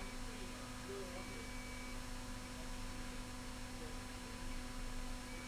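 Steady electrical mains hum from the repair bench, with a faint short high beep about a second in and another near the end.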